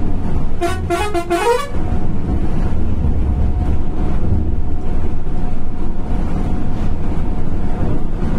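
A vehicle horn sounds a quick run of several stepped notes, lasting about a second, just after the start, over the steady low drone of a Volvo 9600 B8R coach's engine and tyres, heard from the front of the cabin.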